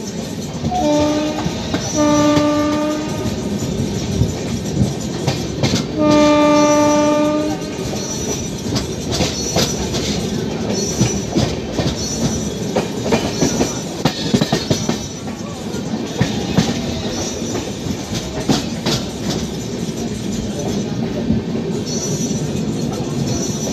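Express train coach running at speed, rattling with sharp clacks over the rail joints. The WAP-7 electric locomotive's horn sounds three times in the first eight seconds: a brief toot, a short blast, then a longer blast of about a second and a half.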